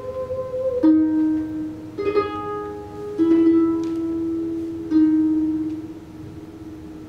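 Two concert harps play slow plucked notes that ring on and overlap. A new low note sounds every second or two, with a quick flurry of plucks about two seconds in. The notes fade away near the end.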